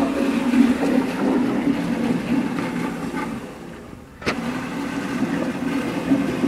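Toilet flushing, a steady rush of water that dies down about three and a half seconds in. Just after four seconds there is a sharp click and the rush of water starts again.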